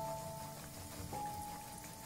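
Background instrumental music with long held notes, a new note coming in about a second in, over a faint crackling sizzle of breaded kababs frying in oil.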